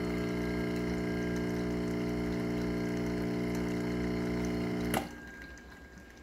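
KitchenAid KES6551SX espresso machine's pump humming steadily as it pulls a single shot of espresso. It shuts off abruptly with a click about five seconds in, at the end of the programmed 30 ml dose.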